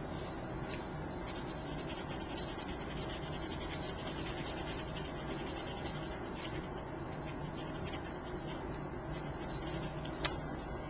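Blender pen scratching and rubbing on cardstock as a stamped bird is coloured, over a steady low hum. A single sharp tap near the end.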